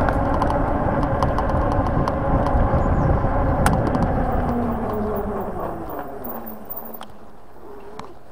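Wind rushing over the microphone with tyre noise from a Lankeleisi X3000 1000 W e-bike riding at speed, under a faint motor whine. After about five seconds the rush dies down and the whine slides lower as the bike slows. A few sharp ticks come through.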